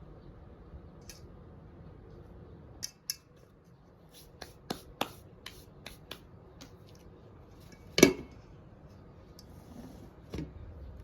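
Scattered sharp clicks and knocks of something being handled, with one much louder knock about eight seconds in.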